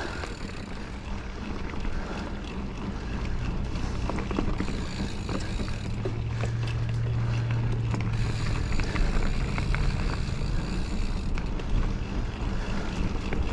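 Mountain bike being ridden along a dirt trail: steady tyre rolling noise and wind on the microphone, with scattered clicks and rattles from the bike. A low hum swells about six seconds in and fades after a couple of seconds.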